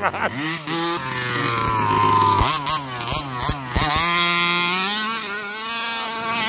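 Rovan Q-Baja RC buggy's 29cc two-stroke petrol engine revving, climbing in pitch, then cut back in several quick throttle blips about halfway, and holding high revs near the end.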